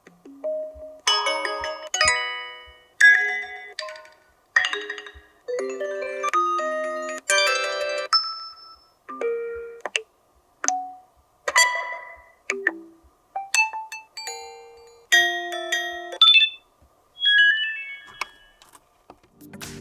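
A long run of HTC Desire 628 Dual Sim notification tones played one after another through the phone's speaker. There are about twenty different short electronic chimes and jingles, each lasting about a second and fading out, with brief gaps between them.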